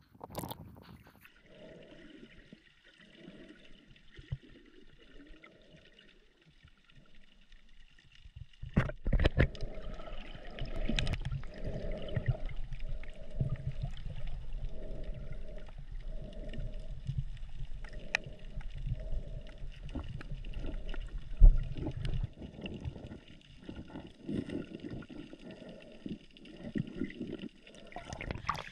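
Sea water sloshing and gurgling around a camera in the water while snorkeling, in soft pulses about once a second. It turns much louder, with a low rumble, from about eight seconds in.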